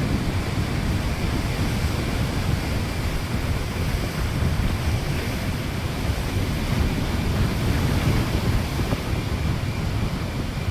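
Strong storm wind buffeting the microphone over rough sea surf, a steady rushing roar with gusty low rumble.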